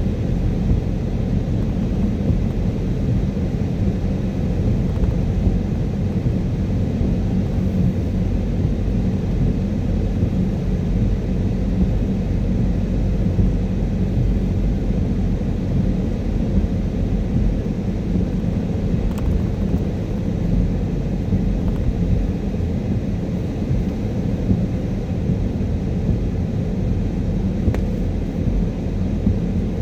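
Car driving on a wet motorway in rain: a steady low rumble of tyres and engine.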